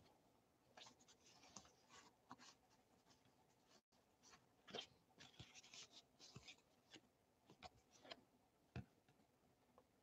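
Near silence, with faint scattered ticks and rustles of paper baseball cards being handled and slid off a stack, a few slightly louder ones near the middle and end.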